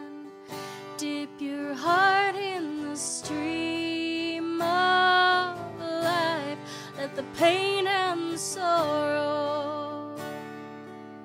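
A woman singing a slow worship song to her own strummed acoustic guitar, drawing out long held notes with vibrato.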